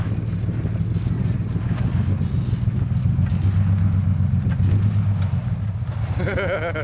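Toyota 4Runner's V6 engine running steadily at low revs as the lifted truck crawls slowly over rocks in low gear.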